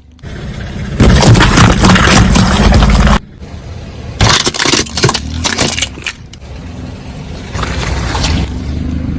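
A car's tyre rolling over and crushing objects, with loud crunching about a second in and again a few seconds later, then the car's low engine rumble near the end.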